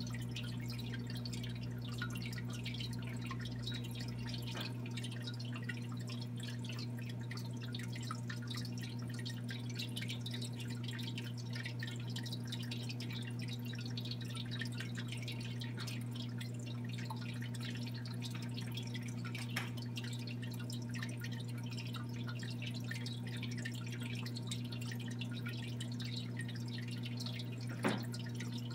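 Aquarium water trickling and bubbling with a constant fine crackle of dripping, over a steady low hum. A single sharp click sounds near the end.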